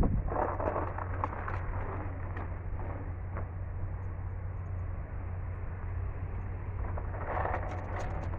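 A motor vehicle's engine running steadily with a low hum, with scattered crackles and rustles about a second in and again near the end.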